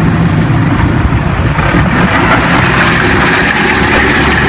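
Forklift engine running steadily and loud, a low hum under a wash of mechanical noise.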